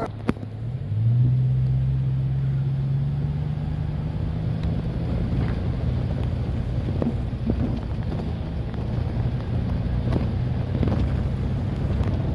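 Diesel locomotive engine running as a low, steady drone, stepping up in pitch and loudness about a second in, with scattered sharp clanks over it.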